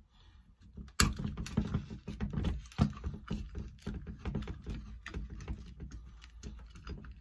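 Vise-Grip locking pliers clamped on a steel cylinder stud, working it into the crankcase of a YD-100 two-stroke engine: irregular metallic clicks, knocks and rattles, starting about a second in with a sharp click.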